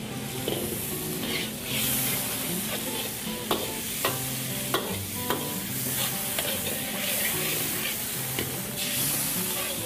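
Metal ladle stirring and scraping around a wok while the sauce in it sizzles steadily. About halfway through, the ladle clinks sharply against the wok several times in a row.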